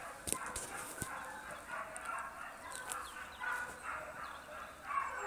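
A pack of Porcelaine hounds and a beagle giving tongue on wild boar, many overlapping cries running on together. A couple of sharp clicks come in the first second.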